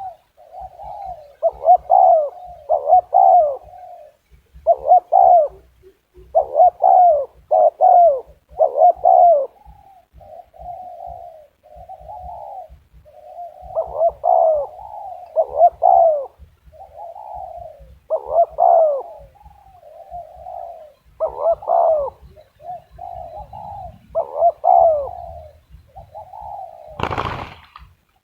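Zebra dove cooing: a long run of quick, rolling coo phrases with short gaps between them. One sharp knock near the end.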